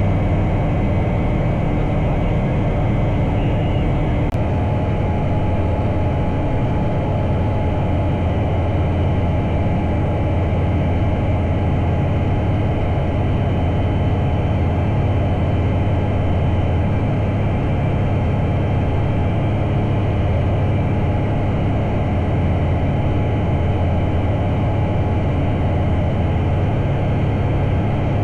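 Bristell Classic light aircraft's piston engine and propeller droning steadily at cruise power.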